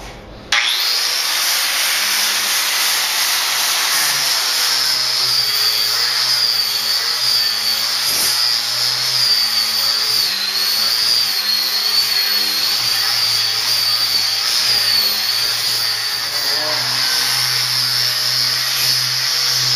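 Milwaukee 4.5-inch angle grinder with a 50-grit aluminum oxide sanding disc grinding a plain steel sheet. It starts about half a second in and runs steadily, with a high whine that wavers in pitch.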